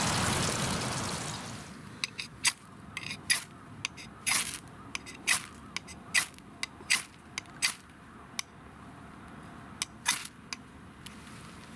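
Background music fading out over the first two seconds, then a series of about a dozen sharp, irregularly spaced clicks and snaps.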